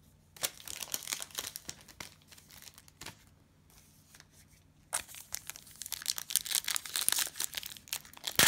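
Plastic wrapper of a trading-card cello pack crinkling and tearing as it is handled and opened: a run of crinkling, a quieter pause of about two seconds, then louder, denser crinkling near the end.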